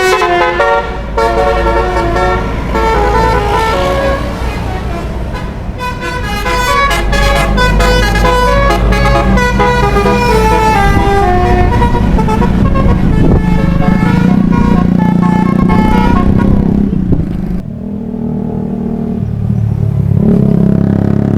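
Bus telolet horn playing a tune of quick stepping notes over a bus engine running beneath. About halfway through the tune gives way to a lower, steadier drone, with a brief dip in level later on.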